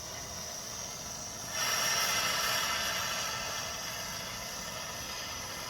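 Electric arc welding: a steady hissing crackle of the arc that starts about one and a half seconds in and eases slightly after its first couple of seconds.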